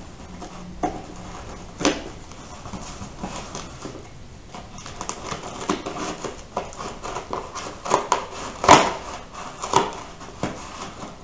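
Scissors blade slitting the packing tape along a cardboard box: a scratchy, crackling scrape of tape and cardboard, with a couple of sharp clicks about one and two seconds in and louder snaps near the end as the box flaps are pulled open.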